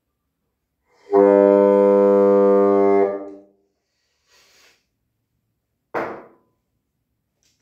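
Bassoon sounding one steady, held low note for about two seconds, a test note on the freshly assembled instrument. About six seconds in there is a single sharp knock.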